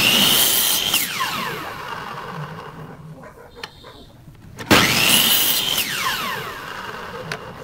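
Electric miter saw run twice, about four and a half seconds apart. Each time the motor whines up to speed as the blade chops through a small wooden block, then winds down with a falling whine once the trigger is released. Between the two runs there are light clicks as the block is handled.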